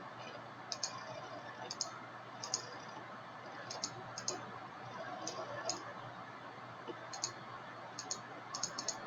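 Computer mouse clicking: short, sharp clicks at irregular intervals, some in quick pairs or runs, over faint steady room hiss.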